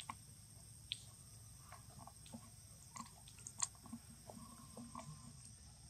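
Faint, scattered small clicks and crackles from macaques close by, over a low steady background hum; the clicks come irregularly, a few a second at most.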